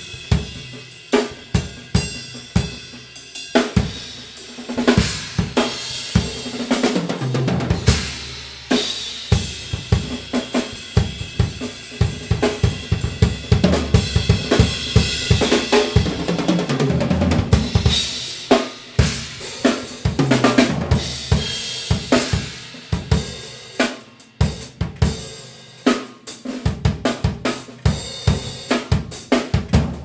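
Drum kit played solo: an Odery Eyedentity kit with bubinga-sapele shells (22x18 bass drum, 10, 12 and 16-inch toms, 14x4.5 snare) with ride, crash and hi-hat cymbals, playing a continuous groove with fills that roll down the toms.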